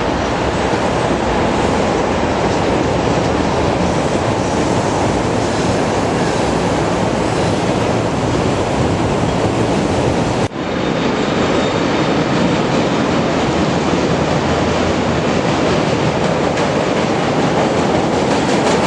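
Train running on rails, a loud, steady rumble and rattle. About ten and a half seconds in, the sound briefly cuts out and resumes at once.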